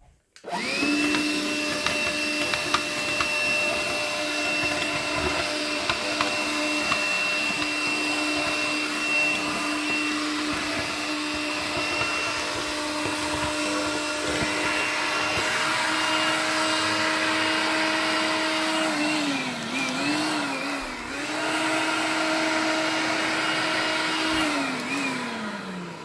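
Makita BCL180 18 V cordless stick vacuum, run with its filter and filter housing removed, starts up with a steady motor whine and sucks up foam Nerf darts with scattered clicks. The pitch dips and recovers a few times later on, then falls away as it is switched off and winds down near the end.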